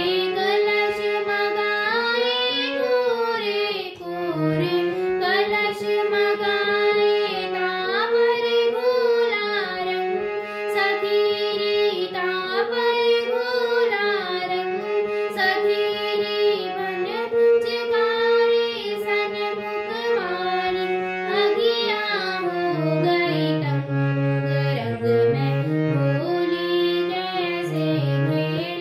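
A girl singing a Holi song while accompanying herself on a harmonium, the reeds holding sustained notes and chords under her voice.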